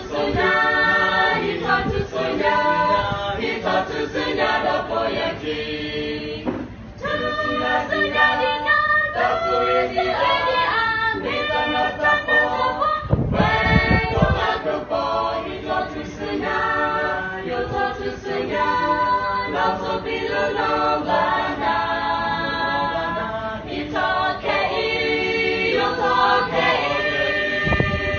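A small group of young women and men singing a song together unaccompanied, in phrases with a short breath pause about a quarter of the way through. A brief low rumble sounds about halfway through.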